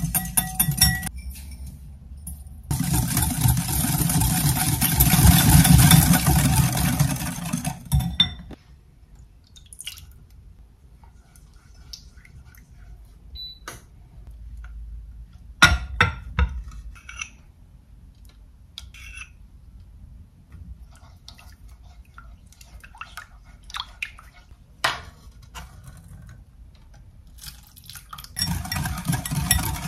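Kitchen work sounds: a steady rushing noise for about five seconds near the start, then sparse light clinks and taps of utensils and dishes, with a sharper knock about halfway through and another near the end.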